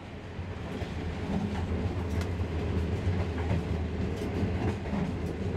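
Slow green passenger train running on its rails, heard from inside a carriage. A steady low rumble grows louder over the first couple of seconds, with faint wheel clicks now and then.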